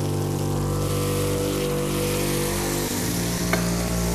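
Spiced onion and tomato-paste gravy sizzling steadily in a stainless frying pan just after a splash of water has gone in, as it is stirred with a wooden spatula.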